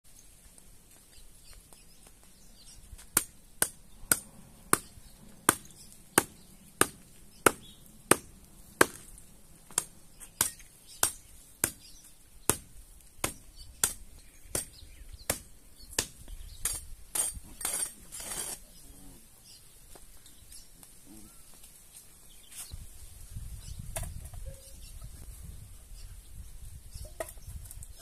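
Hoe blade chopping into hard, dry dirt ground in a steady rhythm, about one and a half strokes a second for some twenty strokes, then a quick run of scraping strokes, breaking up the ground to dig a shallow hollow.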